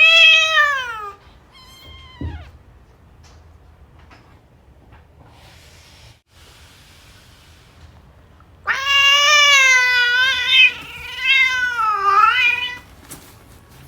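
Persian cat meowing loudly: a long falling meow at the start and a short one about two seconds in, then after a quiet stretch two long, wavering meows near the end.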